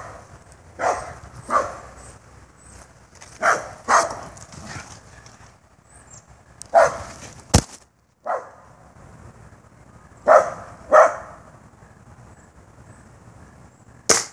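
A dog barking about seven times, mostly in pairs of quick barks a few seconds apart. One sharp knock comes about halfway through.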